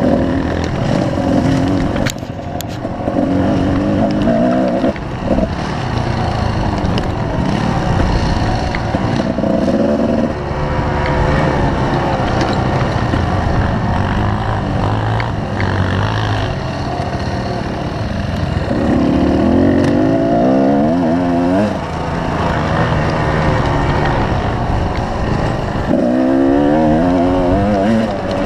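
Kawasaki KDX220R's two-stroke single-cylinder engine under way, the revs rising again and again as the rider accelerates up through the gears and easing off between pulls.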